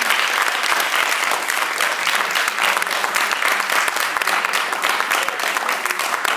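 Sustained applause: many people clapping steadily together, a dense patter of claps in a hall.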